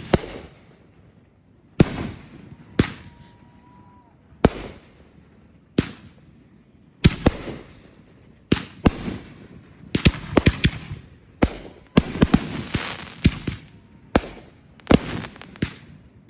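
Aerial fireworks bursting: single sharp booms a second or two apart, each trailing off in crackle, building to a rapid run of overlapping bangs and crackling about ten seconds in, with a brief whistle near the start.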